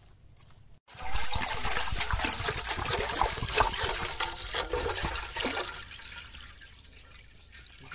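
Water pouring in a thick stream into a wide aluminium cooking pot, splashing loudly against the metal and the rising water, tapering off over the last couple of seconds.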